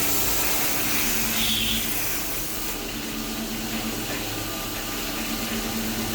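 CNC lathe running steadily while boring the inner hole of a stainless steel part: a steady machine hum under an even hiss.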